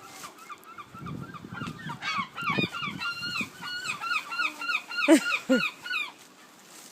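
Gulls calling: a fast run of short, repeated yelping notes from several birds, building up about two seconds in. Two louder, lower squawks come a little after five seconds.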